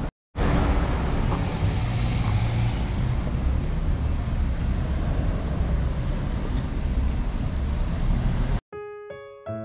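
Street noise with road traffic and a steady low rumble, which cuts off abruptly near the end as soft piano music starts.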